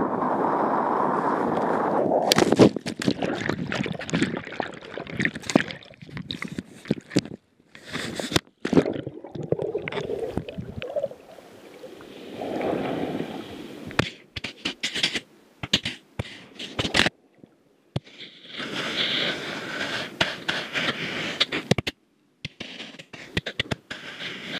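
Wind and water rushing on a kitesurfer's headcam microphone, then about two seconds in a sudden crash into the sea. After that the camera is underwater: water sloshing and gurgling with irregular knocks and scrapes, broken by short silences.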